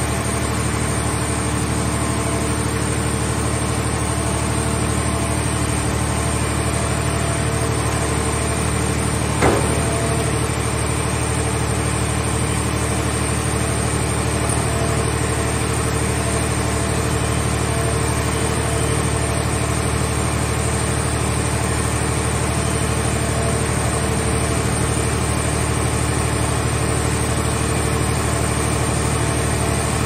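Mobile car shell baler's hydraulic power unit running steadily, a low even drone, as its grab arm lifts a scrapped car body into the baling chamber. A single sharp knock about nine and a half seconds in.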